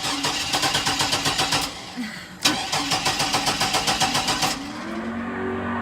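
1999 Chevy Blazer's 4.3-litre V6 being cranked by its starter twice, each time in an even chugging rhythm of about seven pulses a second, without the engine catching: the truck won't start.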